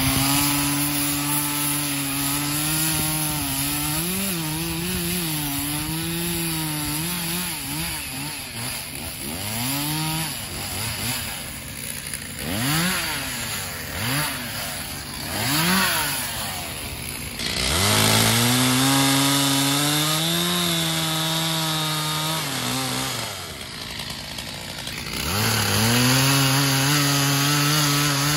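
Two-stroke chainsaw cutting a fallen dead limb, its engine pitch sagging and wavering under load. In the middle come several quick throttle blips. It then revs high, falls back briefly about three quarters of the way through, and revs up again near the end.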